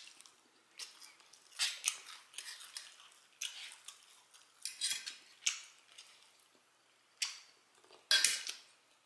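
Close-miked eating of barbecue ribs and fried chicken: wet chewing and lip smacking in irregular short clicks and smacks, the loudest about eight seconds in.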